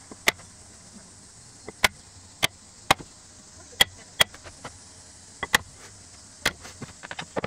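Japanese hammer striking a Japanese chisel as it chops a mortise into a wooden leg blank: about ten sharp strikes at an uneven pace, then a quick run of lighter taps near the end.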